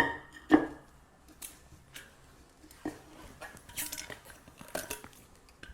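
Blue protective plastic film being peeled off the stainless steel bands on a glass water-distiller jug: light crinkling and crackling with scattered small clicks. There are two sharp knocks near the start, the second the loudest.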